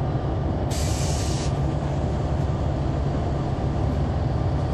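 The Caterpillar C9 ACERT diesel engine of a Neoplan AN459 articulated bus, running with a steady low rumble as heard from inside the bus. About a second in comes a short hiss of compressed air from the bus's air system.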